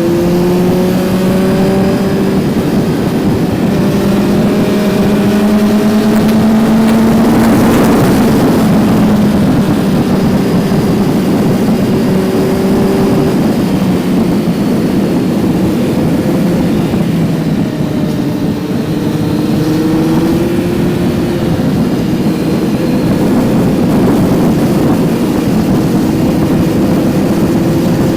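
Kawasaki Z900's inline-four engine running under load, heard from on board the motorcycle, its pitch climbing slowly as it accelerates, dropping back and then holding steady before climbing again.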